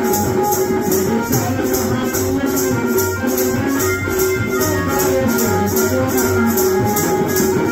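Music from a performance: a rattle keeps a steady beat, about four strokes a second, over held melodic notes.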